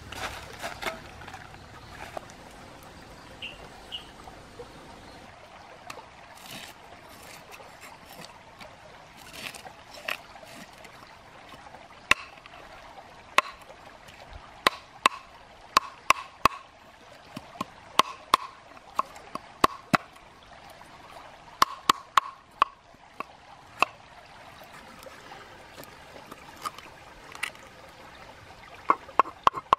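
Stream water trickling steadily, with sharp taps and scrapes of a knife scaling fish on a wooden cutting board, growing frequent from about twelve seconds in.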